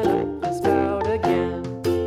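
Cheerful children's background music: a melody of short, distinct notes over a steady beat.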